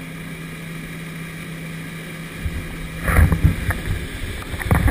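Motorboat engine running steadily under the churning of its wake. From about three seconds in, loud irregular buffeting on the microphone covers it.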